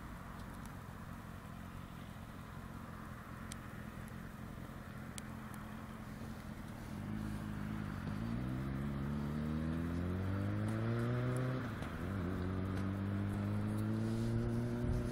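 Triumph Daytona 600 inline-four sport bike, restricted to 33 bhp, approaching under hard acceleration. At first it is a faint distant hum. About halfway through its pitch climbs steadily as it gets louder, drops sharply at an upshift, then climbs again.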